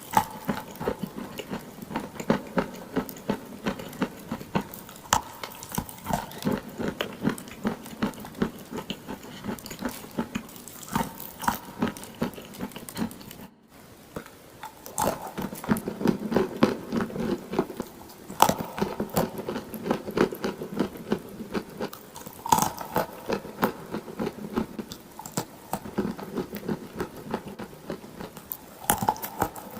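Close-miked biting and chewing of clay: dense, irregular crunching and crackling, with a brief gap near the middle.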